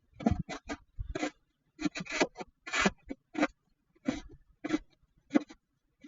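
A series of short scraping crunches in snow, about two a second and unevenly spaced, each a brief rasp with quiet between.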